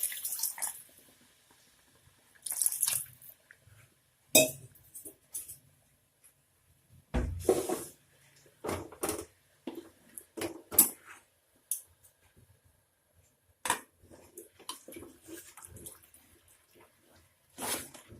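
Water poured into a cooking pan of curry base in short splashes at the start and again around two and a half seconds in, then scattered clinks and knocks of utensils against the pan, the loudest about seven seconds in.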